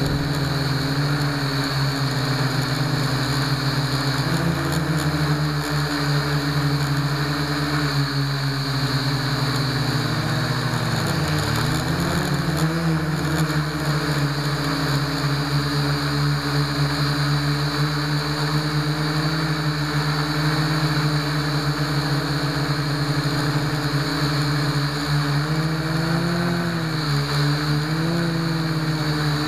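Blade mQX quadcopter's four motors and propellers buzzing steadily, recorded from a camera mounted on its frame, with a high whine above the hum. The pitch wavers, dipping and rising about ten seconds in and again near the end.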